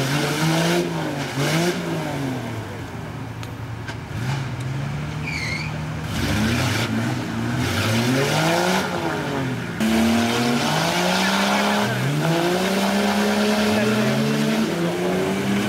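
Nissan Patrol 4x4 engines revving up and falling back again and again as the vehicles work through deep mud.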